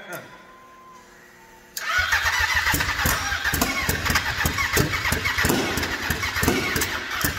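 Turbocharged Yamaha Apex snowmobile four-cylinder four-stroke engine being cranked over, starting about two seconds in. It sputters with irregular pops and backfires for about five seconds and does not settle into running, then cuts off near the end. The misfiring, with flames from the exhaust, is put down to a wrongly set firing order.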